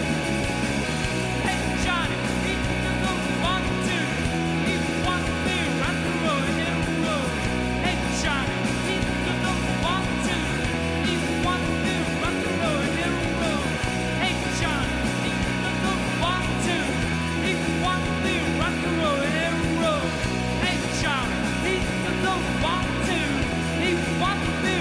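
Rock band playing live: electric guitars with bending, wavering notes over a bass line that changes chord every few seconds.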